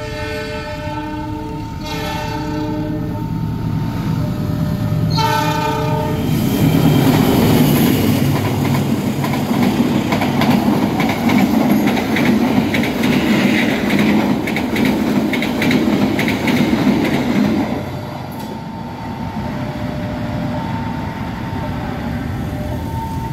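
Indonesian passenger train hauled by a CC206 diesel-electric locomotive: the horn sounds several blasts over the first six seconds, then the coaches pass for about twelve seconds with loud wheel clatter over the rail joints. The level-crossing alarm chimes throughout, heard on its own once the train has gone.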